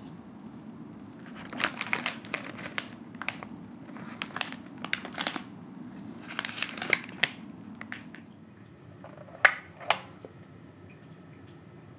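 Clear plastic snack packets crinkling in a run of short bursts as they are handled. Near the end come two sharp clicks about half a second apart, from the pull cord of a wall-mounted MUJI CD player being pulled.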